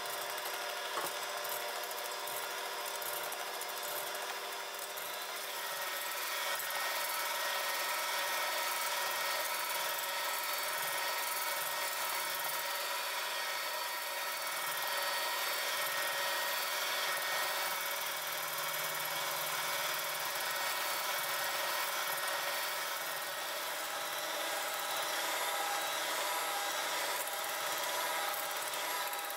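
Electric mixer with a whisk attachment running steadily as it whips egg whites from a thin froth into a thick white meringue foam. It gets a little louder about six seconds in.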